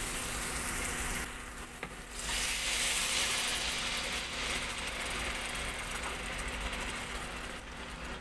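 Onion-and-spice masala sizzling in hot oil in a pan. About two seconds in, a cup of water goes into the hot masala and the sizzling grows louder, then settles into a steady hiss as it cooks.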